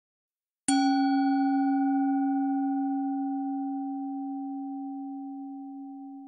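A single bell-like chime struck once, a moment in: a strong low ringing tone with bright higher overtones that fade within a few seconds while the low tone dies away slowly.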